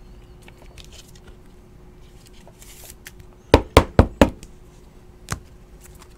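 A clear hard-plastic card case knocked against a tabletop four times in quick succession, then once more about a second later.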